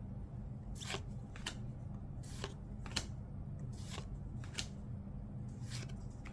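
Glossy trading cards being flipped and slid off a stack one at a time, each a short papery swish, about nine in a row at irregular intervals of half a second to a second, over a faint low hum.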